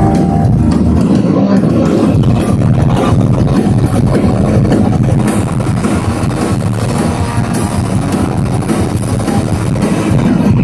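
A rock band playing live at full volume, drum kit driving under the guitars.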